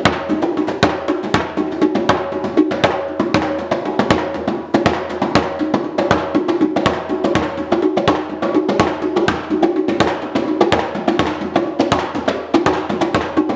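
Background music with busy, rapid percussion of sharp, wood-block-like clicks over a steady pitched line.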